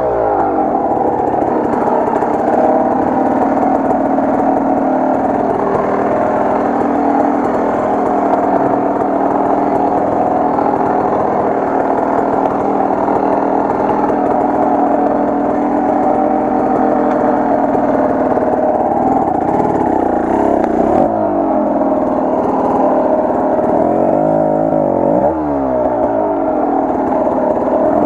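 Enduro motorcycle engine running under way, held fairly steady at first, then revving up and down in quick swells over the last several seconds.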